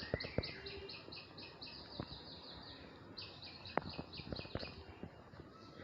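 A bird calling a fast run of repeated high notes, about six a second, for nearly three seconds; after a short pause a second, shorter run follows. A few sharp clicks sound now and then.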